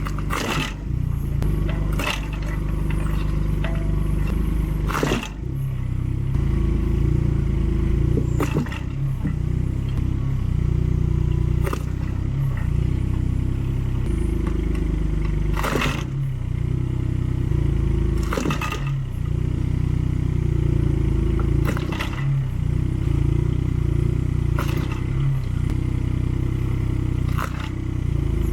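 Mini excavator's engine running steadily, with about ten sharp cracks a few seconds apart as the axe blade mounted on its grab strikes and splits firewood logs.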